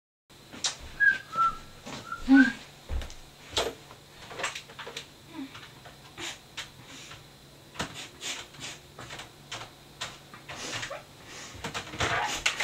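Scattered clicks and knocks of small objects being handled, with a few short whistled notes about a second in and a low steady hum underneath that stops near the end.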